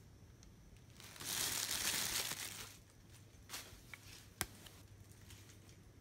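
Packing paper crinkling for about a second and a half, followed by a few light clicks and one sharp tap.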